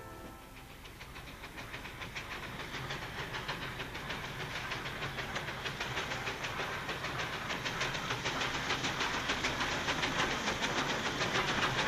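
Steam locomotive running, its beats and clatter in a fast, even rhythm that grows steadily louder.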